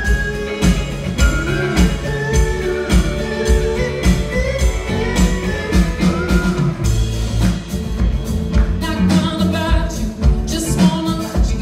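Live band playing a song: a woman singing lead over upright bass, guitar and drum kit, with a steady beat.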